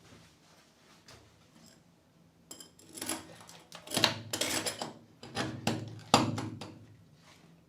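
Hard objects clattering and knocking as they are handled and shuffled about, in several short bursts.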